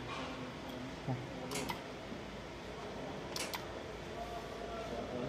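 Laser welding machine running with a steady hum, with a few sharp clicks about one and a half and three and a half seconds in.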